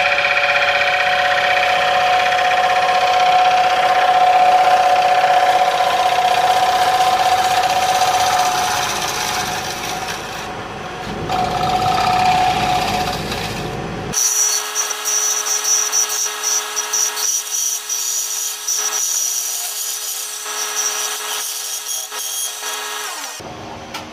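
Wood lathe running while a gouge cuts the inside of a spinning figured crotch-wood bowl, a steady hum under the rough scraping of the cut. About 14 seconds in the cutting stops and only a thinner machine whine remains, which falls in pitch near the end as the lathe slows down.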